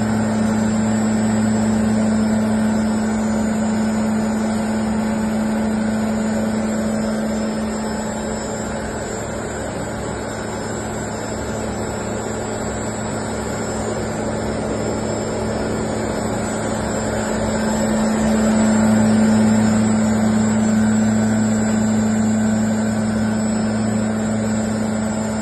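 BSP-350 air classifier mill running steadily while grinding soft stone into powder: a continuous machine hum with a strong low drone, getting somewhat louder for a few seconds about three quarters of the way through.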